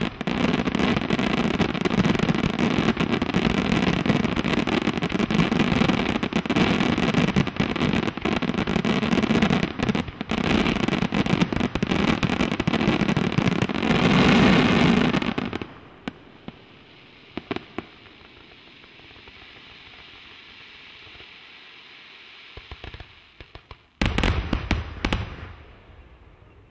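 Aerial fireworks shells bursting in a dense, continuous barrage, the closing barrage of a display, which cuts off suddenly about halfway through. After it come only a few scattered bangs, then a short last volley of loud reports near the end.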